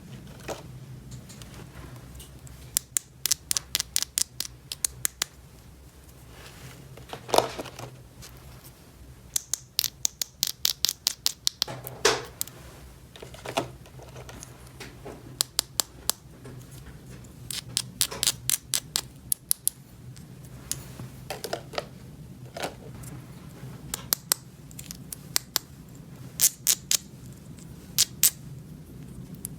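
Bursts of quick, sharp clicks and taps, small plastic toy pieces being handled and snapped, with a few louder knocks over a steady low hum.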